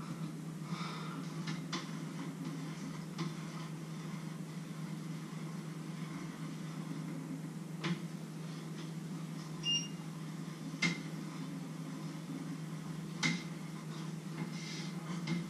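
Kitchen work sounds: a few sharp clinks and knocks of utensils and containers over a steady low hum, with a short high beep about ten seconds in.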